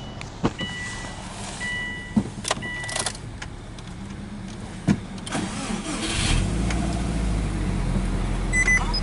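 Subaru Impreza WRX STI from inside the cabin: the car's warning chime beeps a few times among sharp clicks of the key, then about five seconds in the starter cranks and the turbocharged flat-four boxer engine catches. It settles into a steady fast idle at about 1,700 rpm.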